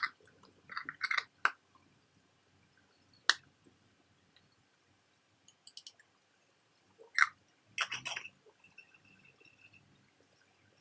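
Small metal watch parts and tools clinking and tapping against a dish during solution cleaning: a series of irregular sharp clicks and light clinks, some with a brief ring.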